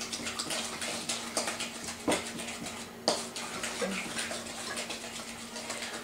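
Egg and sugar being beaten in a bowl with a utensil: a quick, continuous run of wet tapping strokes, with a couple of sharper knocks against the bowl about two and three seconds in.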